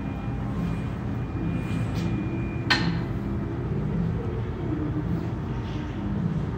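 Yale walk-behind electric reach stacker running its electric motor and hydraulics with a steady hum, a mid-pitched tone rising in the middle and falling away later. A single sharp click comes a little under three seconds in.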